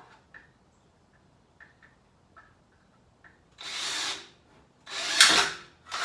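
Power drill run in two short bursts, each about a second long, boring a hole through the back of an electrical outlet box. Faint handling clicks come before the bursts.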